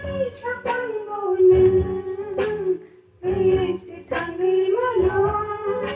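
A song with a high woman's voice singing a sustained, wavering melody, with instrumental backing and a few sharp drum-like hits.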